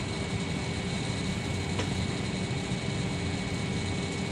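Steady hum and rush inside a passenger airliner's cabin, from its engines and ventilation, with faint steady whining tones over it.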